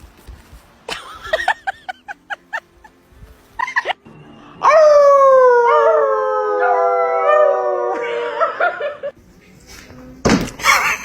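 Animal calls: a quick run of short yips, then one long drawn-out call of about three seconds that sinks slowly in pitch, followed near the end by a loud noisy burst.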